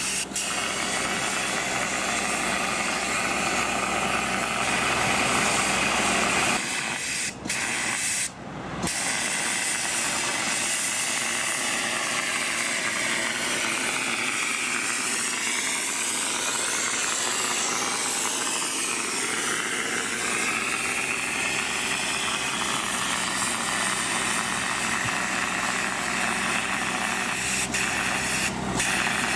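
Road-marking machine running with the steady hiss of its hot spray-plastic spray gun laying a line, the sound briefly dropping out twice, about seven and eight and a half seconds in.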